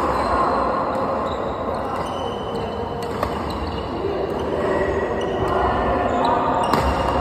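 Badminton rally: rackets hitting the shuttlecock in sharp, irregular smacks a second or more apart, echoing in a large hall over a steady background noise.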